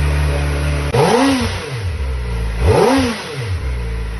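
Kawasaki ZX-4RR's 399 cc inline-four idling, then blipped twice with the throttle, each rev rising sharply and falling straight back to idle, about a second in and again near the three-second mark.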